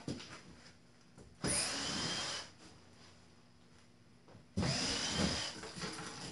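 Cordless drill run in two short bursts about three seconds apart, its motor whine climbing as it spins up, backing screws out of an old refrigerator's cabinet.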